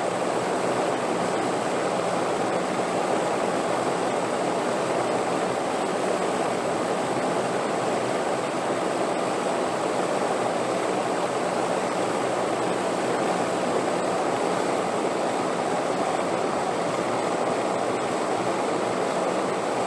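Steady wind sound: an even rushing with no gusts, breaks or changes.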